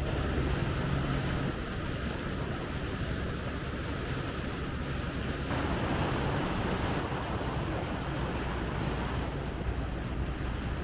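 Tour boat's engine running steadily under way, with water rushing past the hull and wind buffeting the microphone. The sound shifts abruptly a few times.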